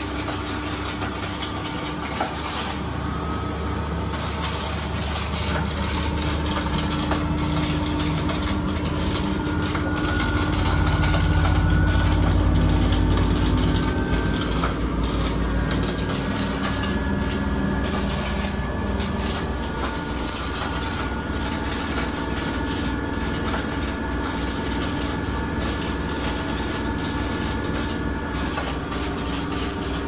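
Miele W1 Classic front-loading washing machine running with its drum turning, a steady motor hum and rumble with a repeated knocking in it. The rumble swells about a third of the way in, then eases. The knocking is a fault the owner cannot place and guesses may be loose cabling.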